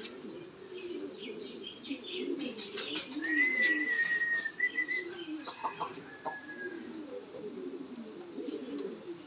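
Domestic pigeons in a loft cooing continuously in low, wavering calls. About three seconds in, a high, steady whistled note lasts nearly two seconds, followed by a few short higher notes.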